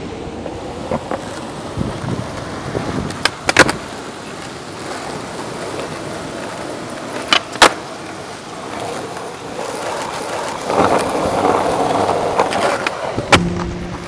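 Skateboard wheels rolling over concrete and brick paving, with sharp clacks of the board snapping and landing during flatground tricks: two quick pairs a few seconds apart, and one more near the end.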